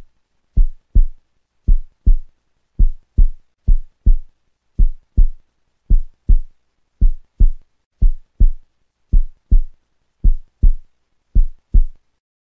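Heartbeat sound effect: pairs of short, deep thumps, a lub-dub about once a second, with silence between, stopping shortly before the end.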